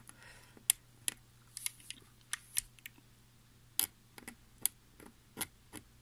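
Utility-knife blade scratching the plastic insulation off a flexible flat cable (FFC) to expose a conductor track: a dozen or so short, irregular scrapes.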